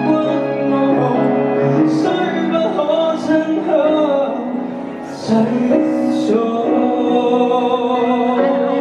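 Live music: a man singing a melody through a microphone, accompanied by violin.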